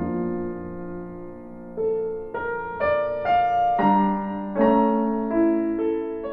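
Gentle piano music: single notes and chords struck one after another, each ringing out and fading before the next.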